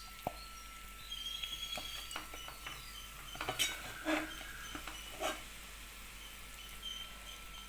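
Metal spoon clinking and scraping against a cooking pan as chicken in gravy is served out into a bowl, in scattered separate knocks.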